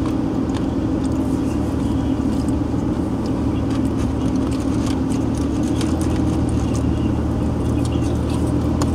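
Car cabin noise while driving on a wet road: a steady low drone of engine and tyres on wet pavement, with scattered light ticks throughout.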